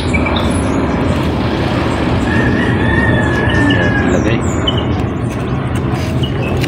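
A rooster crows once, one long call of about two seconds starting some two seconds in, over a steady noisy background with small bird chirps here and there.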